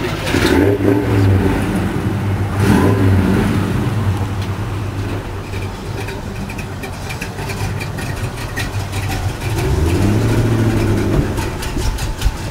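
Ford GT's supercharged V8 revved in short surges, about a second in, around three seconds and again near ten seconds, running steadily at a lower pitch in between.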